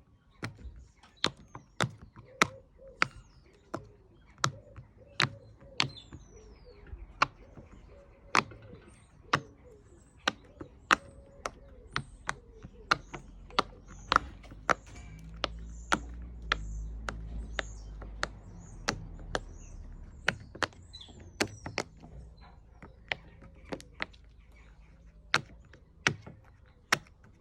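Silicone pop it fidget toy bubbles being pressed one after another: sharp pops at an uneven pace of about one or two a second.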